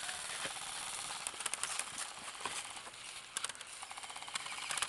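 Airsoft rifles firing on full auto: a fast rattle of shots, with louder bursts about a second and a half in, at about three and a half seconds, and near the end.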